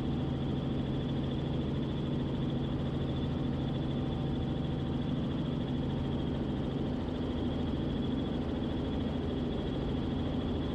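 Robinson R44 Clipper II helicopter in cruise, its piston engine and rotors making a steady drone heard from inside the cabin, with a faint constant whine over it. A low hum in the drone drops away about two-thirds of the way through.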